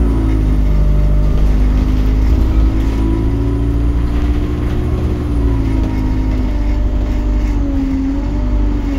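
Alexander Dennis Enviro 200 single-deck bus heard from the rear of the saloon while driving: a steady low engine rumble with a droning hum that rises and falls a little in pitch.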